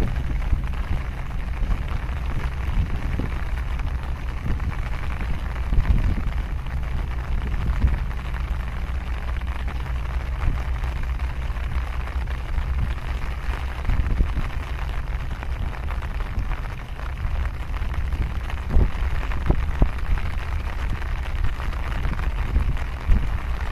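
Wind buffeting the microphone: a steady low rumble that swells in gusts several times, over a continuous hiss.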